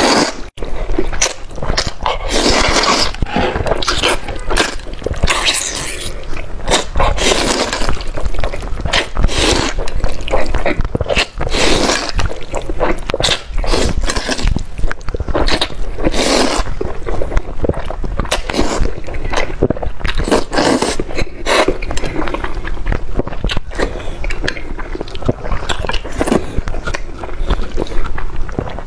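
A man slurping up mouthfuls of spicy fried noodles and chewing them, close to a clip-on microphone. The slurps and chews come as loud bursts every second or two.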